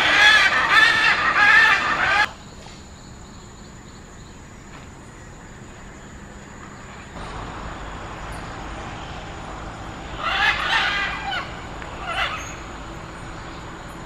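Great green macaw calling loudly for the first two seconds, then cutting off suddenly; fainter bursts of the same calls come back about ten seconds in and once more briefly about twelve seconds in.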